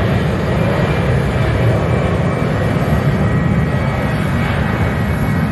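Twin-engine jet airliner's engines running at takeoff power during its takeoff roll: a steady, loud, deep rumble with a rushing hiss above it.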